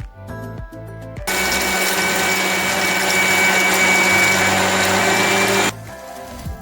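Electric blender grinding dry-roasted whole spices to powder: the motor starts about a second in, runs steadily for about four seconds, and stops abruptly.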